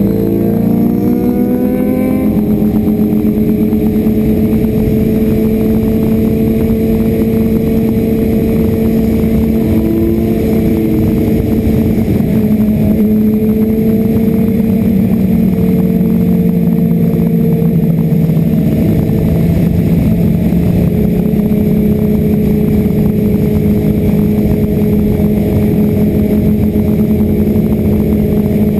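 Motorcycle engine at highway speed, its pitch rising over the first couple of seconds as it accelerates and then holding steady, under heavy wind rush on a helmet-mounted camera.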